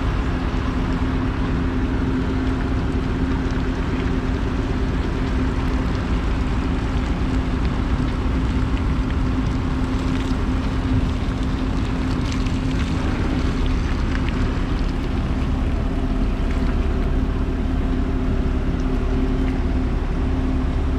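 Cattle-feed milling and mixing machinery running steadily: a constant mechanical hum over a low rumble, with a few faint clicks and rattles.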